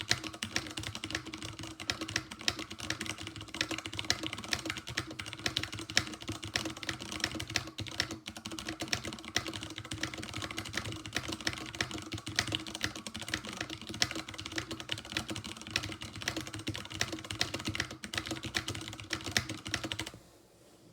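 Rapid, steady typing on a computer keyboard, a dense run of keystroke clicks that stops shortly before the end.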